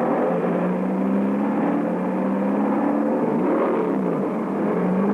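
Engines of small racing cars running hard, several pitches overlapping. About three and a half seconds in, their pitches swoop down and back up as cars go by.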